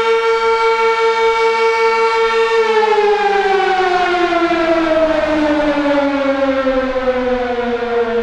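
Electromechanical outdoor warning siren holding a steady tone with a quick, even wavering in loudness. After almost three seconds it winds down, the pitch falling steadily to about half.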